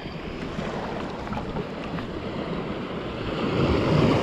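Shallow surf water lapping and sloshing, with wind on the microphone; the water noise swells louder near the end.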